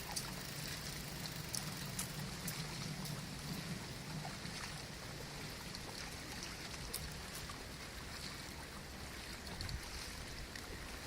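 Steady rushing noise of a bicycle being ridden, tyres and air moving past, with scattered light clicks and rattles.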